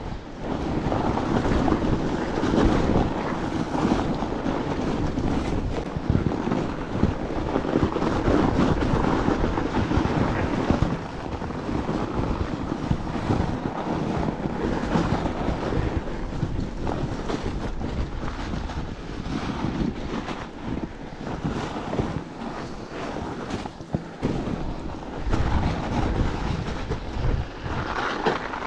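Fatbike riding noise: wind buffeting the microphone over the rumble of fat tyres rolling on packed snow, with the bike knocking and rattling over bumps throughout.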